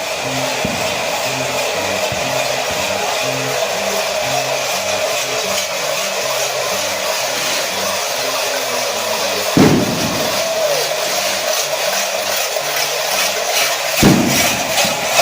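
Dense, continuous clanging of hundreds of cencerros (cowbells) worn and shaken by a crowd of cencerreros, with a low repeating bass pattern underneath. Two sudden deep thumps, about 9.5 and 14 seconds in.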